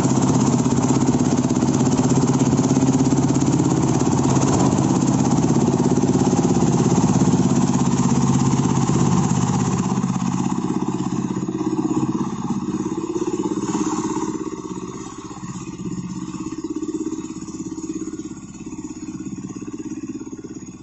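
Engine of a tracked crawler dumper running steadily as the machine drives off across mud. From about ten seconds in it grows fainter and wavers as the dumper moves away.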